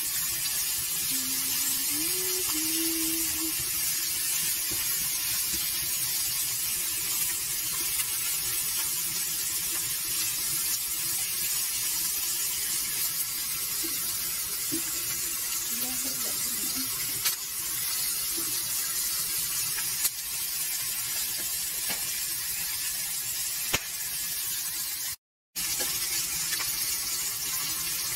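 Flour-dusted Atlantic herring frying in oil in a pan: a steady sizzle, with a few light clicks of a fork against the pan as the fish is turned. The sound cuts out for a moment near the end.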